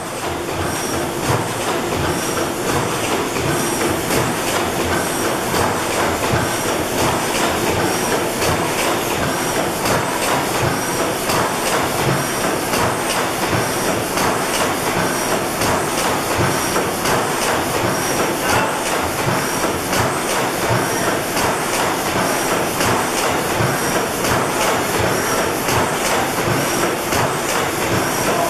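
Large antique stationary gas engines running: a loud, steady, dense mechanical clatter of valve gear and firing beats, with a faint high chirp repeating at regular intervals.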